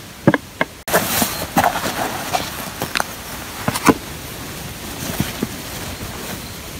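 Potatoes, an onion and a bread bun set down one by one on a small wooden board: a series of light knocks. From about a second in, a steady rushing noise, like wind on the microphone, sits under them.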